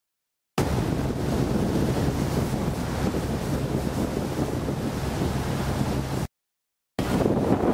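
Boat under way at sea: wind buffeting the microphone over a steady engine hum and rushing water. The sound drops to dead silence for under a second at the start and again near the end.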